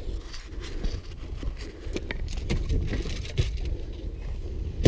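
Scattered knocks and clatter in a small fishing boat as a hooked fish is netted and handled, over a low steady rumble.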